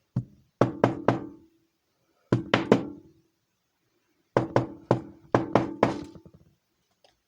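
Sharp metal knocks as a drilled-out Master Lock padlock is tapped to shake loose the pins left inside it. The knocks come as a single one, then sets of three, three and about six, each with a short ring.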